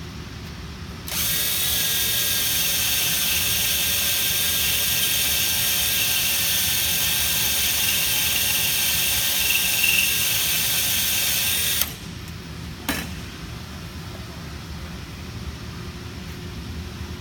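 Electric drill running at a steady speed for about ten seconds while boring a hole through clamped, oiled metal, then stopping abruptly; a single sharp click follows about a second later. A low steady rumble underneath throughout.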